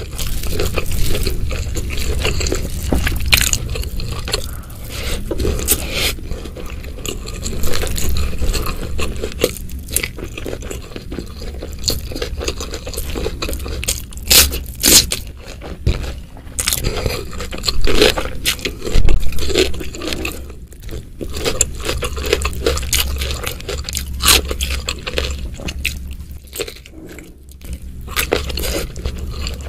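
Close-miked ASMR eating sounds of spicy Indonesian food eaten by hand: wet chewing with frequent sharp crunches of raw vegetables such as cucumber, and fingers scraping through the food. The crunches come irregularly, the loudest a little before and after the middle.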